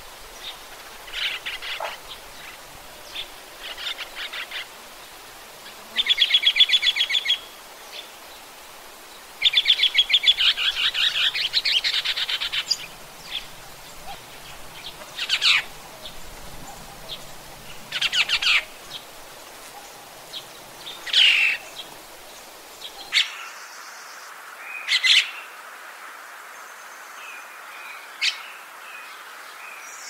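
Daurian starling calling: a string of short, sharp chirps and notes, with two longer rapid rattling phrases a few seconds in. Past the middle the background changes to a steadier hiss as another recording of the bird's calls begins.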